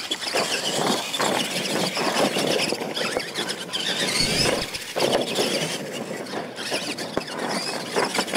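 Two electric RC monster trucks racing on a dirt track: a high-pitched motor and gear whine that rises and falls with the throttle, over tyres scrabbling on dirt, with short knocks as they land off the jumps.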